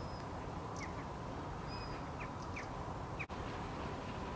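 Small birds calling faintly in the background: a handful of short, quick downward chirps and a couple of thin high whistles, over a steady outdoor hiss and low rumble. The sound cuts out for an instant a little past three seconds in.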